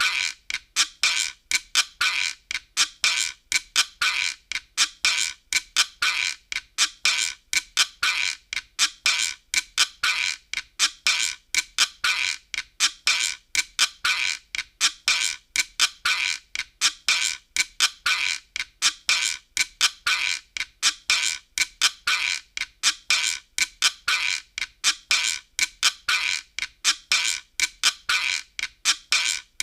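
Optigan sound effect: a steady repeating loop of short, sharp, high squeaky clicks, about two to three a second, keeping the same pattern throughout.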